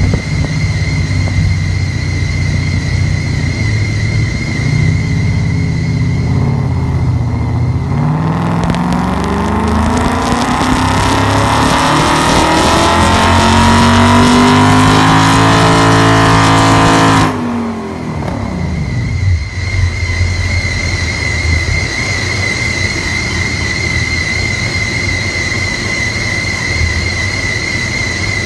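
Ford Mustang GT's 5.0 Coyote V8, with long-tube headers and a Borla Pro XS exhaust, running on a hub dyno. It idles, then about eight seconds in makes a wide-open-throttle pull, the exhaust note rising steadily for about nine seconds to around 6,500 rpm. The throttle then cuts off sharply and the engine drops back to idle, with a steady high whine under the idle.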